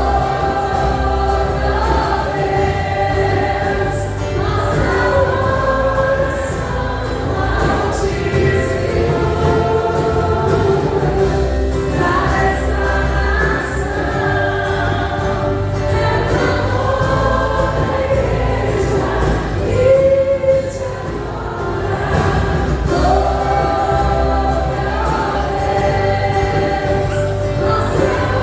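Christian gospel worship song: choir singing a melody over instrumental backing with a steady bass.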